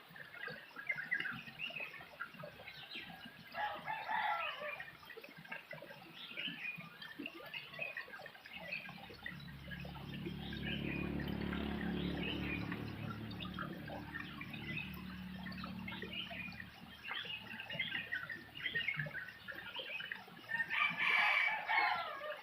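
Chickens clucking and a rooster crowing among chirping birds, with louder calls about four seconds in and near the end. A low drone swells and fades in the middle.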